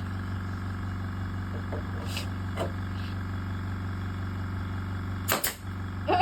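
Air compressor motor running steadily, with a loud sharp pneumatic de-nailer shot about five seconds in and a couple of faint clicks before it.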